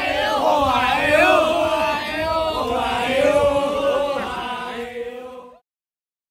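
A group of men chanting together in unison, with many voices on held, wavering notes. It cuts off abruptly about five and a half seconds in.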